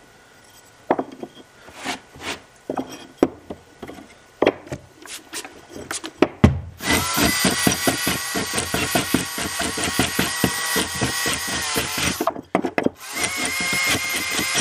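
Several sharp clicks and knocks of tool handling, then about halfway through a small electric power tool starts and runs steadily. It cuts out briefly near the end and starts again.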